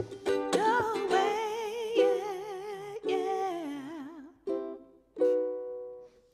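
Ukulele strummed in chords under a woman's voice singing long held notes with vibrato. Near the end a few short strums are followed by a single chord left to ring and fade away.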